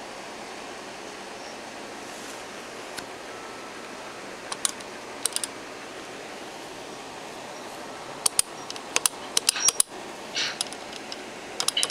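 Clicks of a payphone's metal keypad buttons being pressed: a couple of single presses midway, then a quick run of presses near the end as digits are dialled into the mobile phone wired to it. A steady hiss runs underneath.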